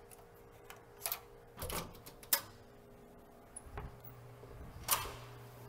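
A few irregular clicks and knocks over a steady low hum.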